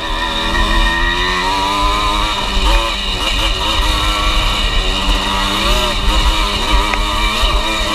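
Dirt bike engine heard from on board the rider's own bike. Its pitch climbs steadily over the first couple of seconds, then rises and falls several times with the throttle. A low rumble of wind sits underneath.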